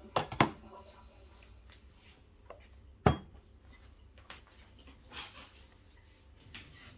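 Clatter of espresso equipment being set down: two sharp metallic clicks at the start, one loud knock about three seconds in, then a few lighter clicks, as a stainless portafilter and a knock box are placed on the espresso machine's drip tray and counter.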